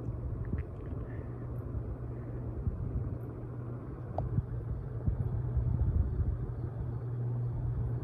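Honeywell Belmar ceiling fan running at high speed: a steady low motor hum under the rush of air from the blades, which buffets the microphone with an uneven low rumble.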